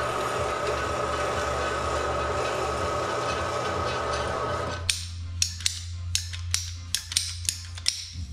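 Band saw running steadily as it cuts PVC pipe, cutting off abruptly about five seconds in. It is followed by a ratcheting PVC pipe cutter clicking about three times a second as its handle is worked on a length of pipe.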